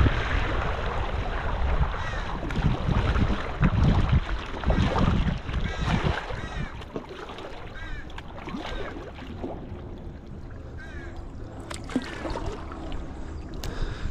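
Kayak paddling on calm water, with wind buffeting the microphone through the first half and small bird calls repeating every few seconds.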